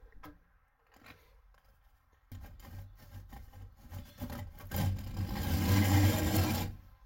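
Hacksaw cutting through a flue pipe for a Truma boiler. The rasping starts a couple of seconds in, grows louder and stops shortly before the end.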